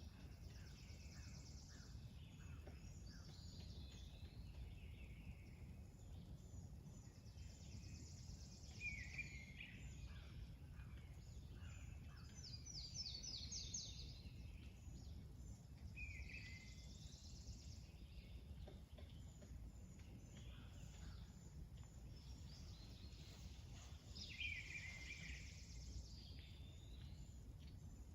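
Faint birds chirping and singing here and there over a steady low background rumble; the calls are short, high chirps and trills, several in a quick series around the middle.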